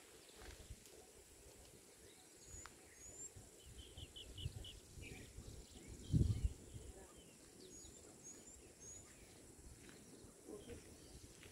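Faint outdoor ambience with scattered bird calls: a quick run of about six short chirps, and thin, high rising chirps in two groups. A low thump a little past the middle is the loudest sound.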